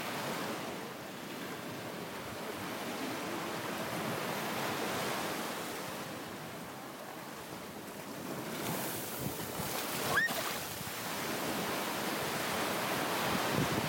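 Ocean surf breaking and washing up the sand, a steady wash that swells stronger in the second half as a wave runs in. There is one brief sharp sound about ten seconds in.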